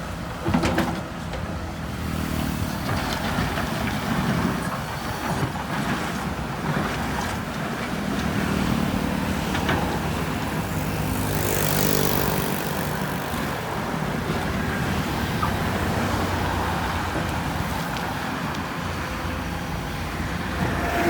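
Diesel engines of heavy earthmoving machinery running under load, with a few sharp clanks and a brief rush of noise about halfway through.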